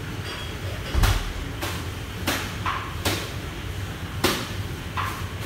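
Commercial kitchen background: a steady low hum with six sharp knocks or clanks at uneven intervals, the loudest about a second in and just after four seconds in.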